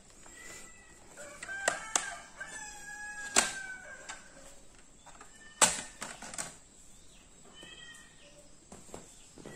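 Sharp plastic clicks and snaps as a laptop's bottom cover panel is pried off its clips, the loudest about three and a half and five and a half seconds in. A rooster crows once in the background from about a second and a half in, with a shorter call near the end.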